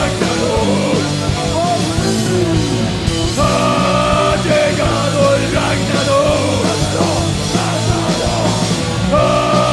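Heavy metal band playing live, with distorted electric guitars over a full drum kit. A lead melody of long held high notes comes in about three and a half seconds in and again near the end.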